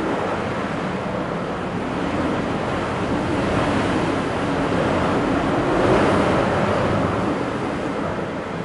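Typhoon wind gusting and buffeting the microphone as a steady rushing noise that swells to its strongest about six seconds in and then eases.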